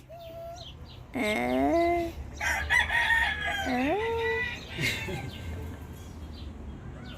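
A rooster crowing twice: a first crow about a second in, then a longer one running to around four and a half seconds.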